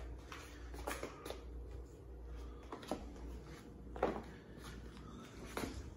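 Quiet room with a low steady hum and a handful of faint, brief taps and knocks scattered through it.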